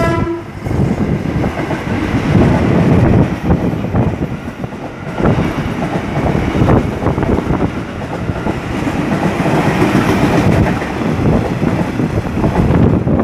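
KRL Commuter Line electric multiple-unit train running past, a steady loud noise of wheels on rails, opening with a short horn toot.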